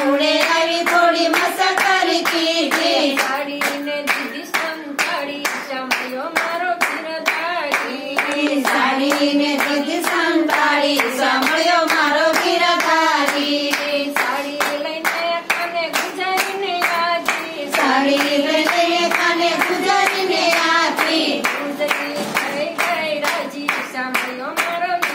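A group of women singing a Gujarati devotional bhajan together, keeping time with steady rhythmic hand claps.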